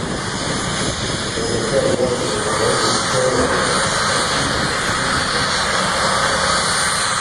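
Jet-powered drag racing car's turbine engine running as it launches down the strip, a loud, steady noise.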